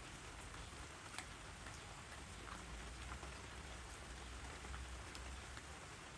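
Steady rain falling, with scattered single drops ticking sharply on a surface.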